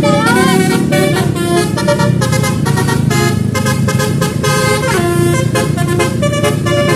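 Basuri-style multi-tone musical vehicle horn playing a fast tune of short, changing notes, with a curving pitch sweep near the start.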